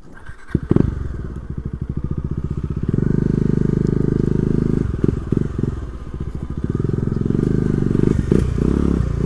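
Motorcycle engine coming to life about a second in after a couple of sharp knocks, then running with a fast, even putter that gets louder a few seconds in as the bike moves off, dipping briefly a few times.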